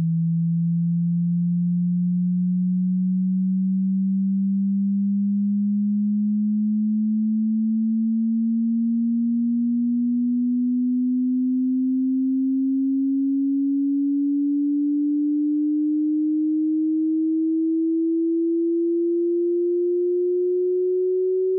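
Pure sine test tone sweeping slowly and evenly upward in pitch from a low hum to a somewhat higher tone, at a steady level: a hearing-test frequency sweep for finding one's tinnitus pitch.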